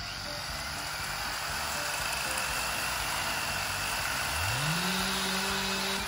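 Chainsaw running and cutting into a log. A little over four seconds in, the engine revs up to a high, steady pitch.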